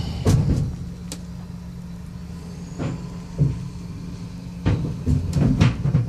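A vehicle engine idles steadily under a series of sharp thumps and bangs, the sound of junk being thrown off a truck onto the transfer station floor. The bangs come a few at a time, most of them in the last couple of seconds.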